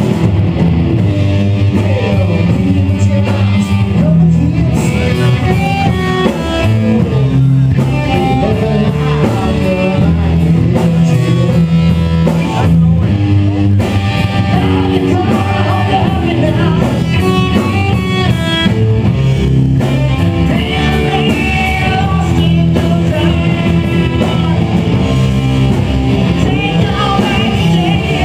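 Live rock band playing: electric guitar, bass and drums, with singing at the microphone.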